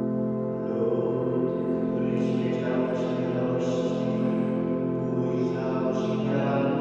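Church music of long, held chords that change slowly, over a steady bass tone.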